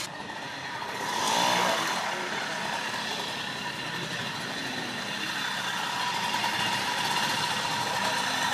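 A vintage moped's two-stroke engine idling steadily.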